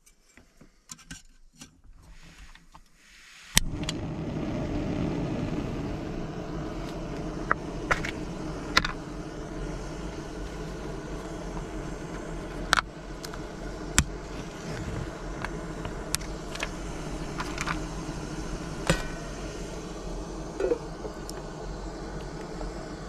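Jetboil camping stove's gas burner lighting with a sharp click about three and a half seconds in, then running with a steady rushing hiss. Metal cookware and utensils clink sharply a dozen or so times over it as chili goes into the pan.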